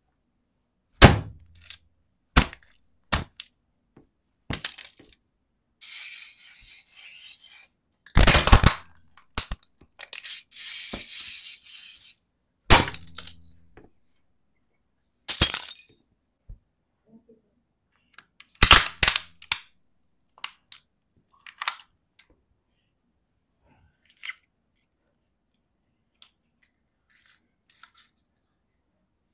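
Hard plastic toys cracking and crunching under a boot sole: a run of sharp snaps, with longer crackling crunches between about 6 and 12 seconds in, more cracks later, and only faint clicks near the end.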